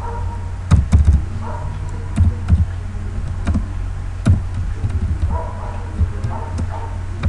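Scattered clicks and knocks of someone typing on a computer keyboard, over a steady low electrical hum.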